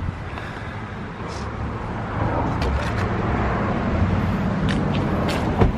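A few knocks and bumps as aftermarket wheels are loaded onto a car's back seat, the loudest just before the end, over a steady low vehicle rumble.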